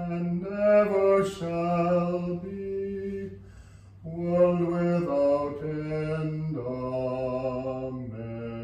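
A man's voice chanting a liturgical text to plainsong, holding long notes with a short break partway through, the melody stepping down lower in the second half.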